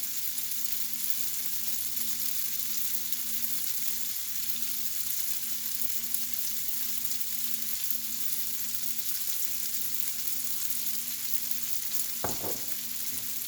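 Spaghetti noodles frying in a hot pan with oil and garlic, a steady sizzle, with a faint low hum underneath.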